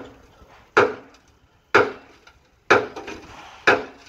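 Sharp hammer-like strikes on a crane-hung steel concrete bucket: four blows about a second apart, each ringing briefly.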